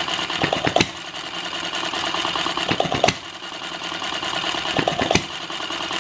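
Quarter-scale model of a Red Wing single-cylinder hit-and-miss engine running with its fuel valve shut: a steady light mechanical clatter as the flywheels coast, broken about every two seconds by a sharp firing pop led by a few quick ticks. Three pops in all, as the engine runs short of fuel.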